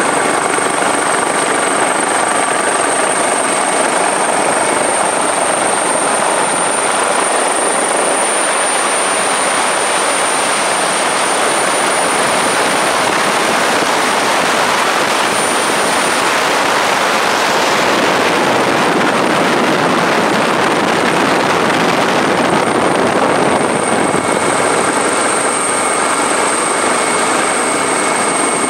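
Helicopter noise heard on board: a loud, steady rush of rotor and engine sound with a thin high whine running over it.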